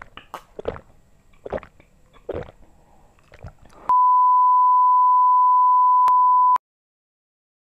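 Several gulps of a cold drink being swallowed, then a loud steady 1 kHz test-tone beep of the kind played with colour bars. The beep starts about four seconds in, lasts about two and a half seconds and cuts off abruptly into silence.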